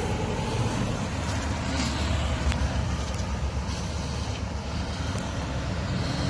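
Backhoe loader's diesel engine running steadily with a low rumble, with a few faint clicks over it.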